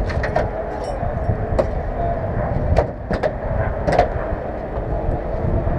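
Race car's hood being lowered and fastened: a handful of sharp knocks and clicks, the loudest about four seconds in, over a steady low rumble.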